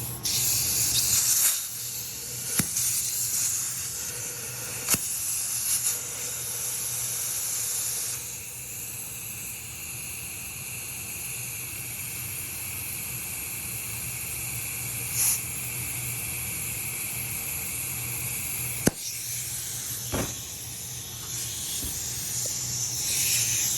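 Compressed air hissing steadily from an air chuck into a new inner tube in a small tractor tire, inflating it to seat the bead. The hiss is louder for the first eight seconds or so, then steadier and quieter, with a few sharp clicks along the way.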